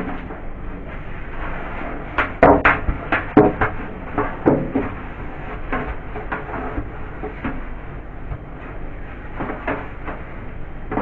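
Knocks and clatter of fridge parts being handled and set in place: a run of sharp knocks about two seconds in, scattered lighter knocks after, and another near the end, over a steady background noise.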